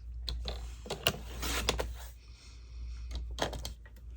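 Paper being handled and trimmed: rustling and sliding, with a few sharp clicks of the cutting tool, over a steady low hum.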